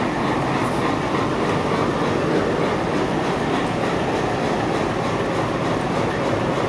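Indian Railways broad-gauge diesel locomotive passing close alongside the platform: its engine running and its wheels on the rails make a steady noise that does not let up.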